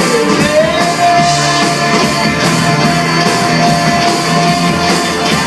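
Live rock band playing an instrumental stretch of a song, with one long held high note that glides up about half a second in and sustains over the band.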